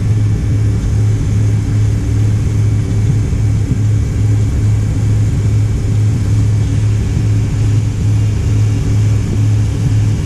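Cabin noise of a McDonnell Douglas MD-88 airliner taxiing on the ground: a steady rumble with a strong, constant low hum from its rear-mounted turbofans at low thrust, heard from inside the cabin.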